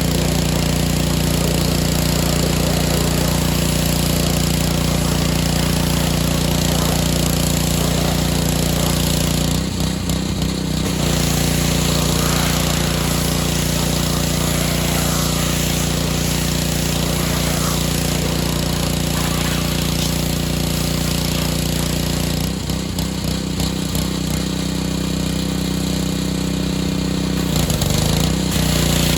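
Gas-engine pressure washer running steadily, its engine hum under the hiss of the water spray, which changes briefly about a third of the way in and again near the end as the spray is moved or the trigger is worked.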